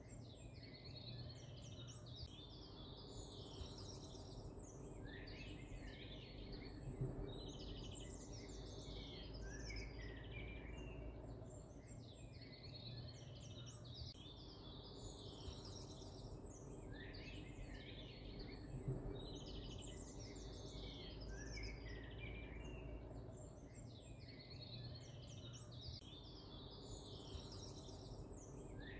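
Birds chirping over a low steady hum, the same stretch of birdsong repeating about every twelve seconds, as in a looped ambience track.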